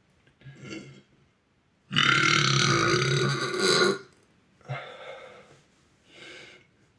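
A boy lets out one long, loud burp lasting about two seconds, with fainter, shorter sounds before and after it.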